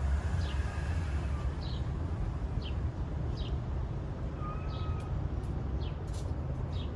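Small birds chirping, short high chirps about once or twice a second, over a steady low outdoor rumble.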